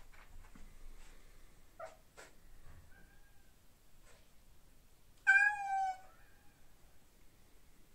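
Domestic cat giving one long, loud meow about five seconds in, with a faint short mew about three seconds in and two light clicks before it. The cat is calling for a companion cat it cannot reach behind a closed door.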